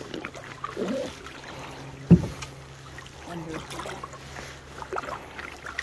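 Canoe being paddled: paddle strokes with water swirling and dripping around the blade, and one sharp knock about two seconds in.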